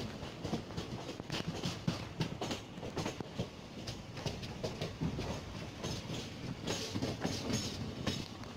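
Passenger train's wheels clattering over rail joints and points, many irregular clicks a second over a steady running rumble.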